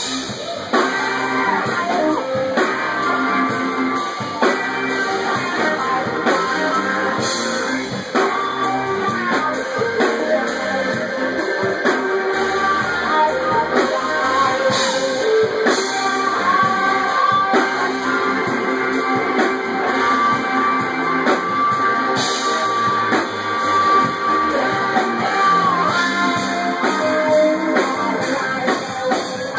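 Live rock band playing: guitar and drum kit, with some singing, recorded through a phone's microphone.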